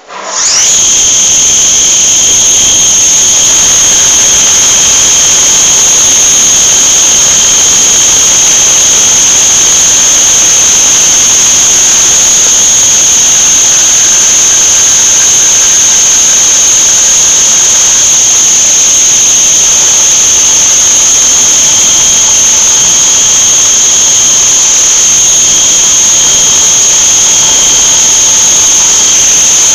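Krisbow CNC milling machine's spindle starting up and running at speed: a loud, steady, high-pitched whine that comes up within the first half second.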